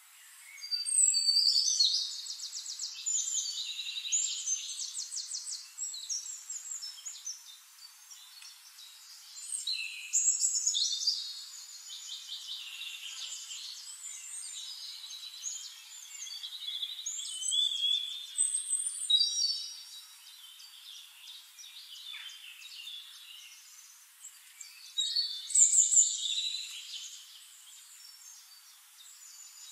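Songbirds singing in a string of separate phrases of high, fast trills and warbles. The loudest bursts come about a second in, around ten seconds in, and again near the end.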